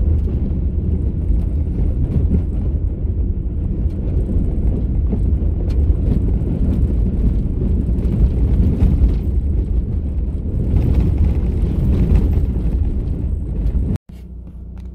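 Car driving on a dirt gravel road: a steady, loud, low rumble of tyres on gravel and vehicle noise. Near the end it cuts off abruptly and gives way to a much quieter hum.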